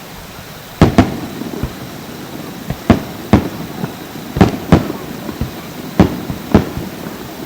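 Fireworks shells bursting overhead: a string of about eight sharp, irregularly spaced bangs starting about a second in, each with a brief echo.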